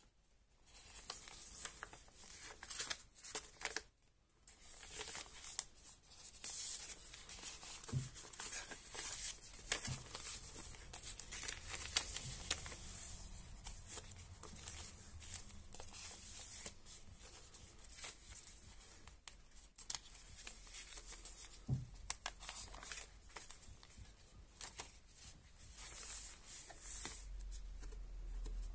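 Paper rustling and crinkling as the thick pages of a handmade junk journal are turned and paper cards and a postcard are slid out of its pockets, with a few soft thumps of hands on the book.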